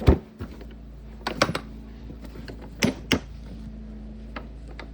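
Sharp plastic clicks and knocks from Milwaukee Packout organizer cases and their small bins being handled, about five in all, some in quick pairs, over a faint steady hum.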